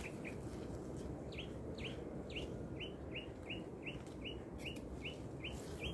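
A bird calling a long, even run of short falling chirps, about three a second, that starts a little over a second in, over a faint outdoor background.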